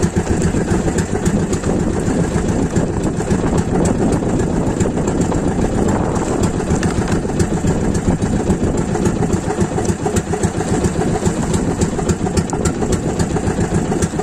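Engine of a small outrigger fishing boat running steadily, a rapid, even beat with no change in speed.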